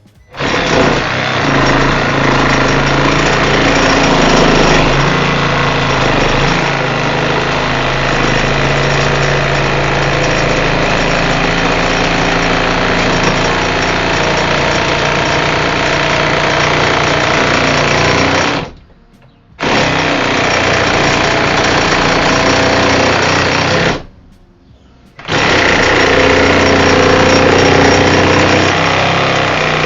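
Milwaukee M12 Hackzall, a 12-volt one-handed reciprocating saw, running continuously as it cuts through wood with a wood blade, with a ton of vibration. The saw stops briefly twice, for about a second each time, and starts again.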